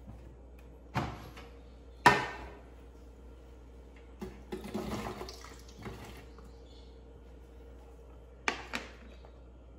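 Wet watermelon chunks tipped from a glass bowl sliding and plopping into a plastic blender jar for about two seconds, set between two sharp knocks early on and a couple of short clicks near the end from handling the jar and bowl on the counter.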